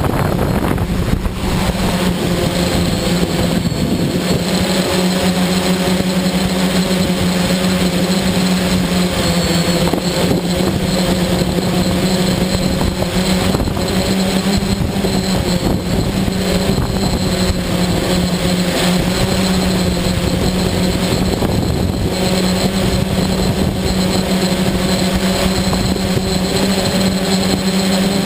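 Darley Stinger multirotor drone's electric motors and propellers buzzing steadily as it lifts off and climbs, heard up close from the camera mounted on the aircraft. A steady low hum with higher whining tones over a rushing noise.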